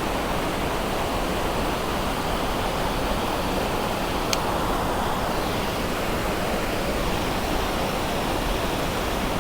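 Steady rushing noise of running water, even and unbroken, with a single faint click about four seconds in.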